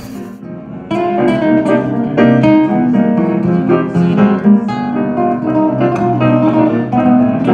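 Amplified nylon-string acoustic guitar and piano playing a tune together, coming in about a second in.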